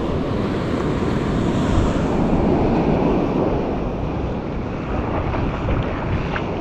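Wind buffeting the microphone over the steady wash of surf breaking on the shore.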